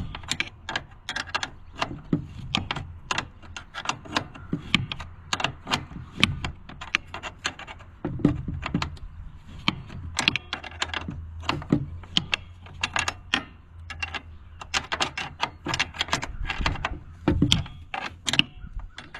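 Hand ratchet wrench clicking in short strokes as it tightens the lock nut holding a garden tractor seat: irregular sharp clicks, several a second.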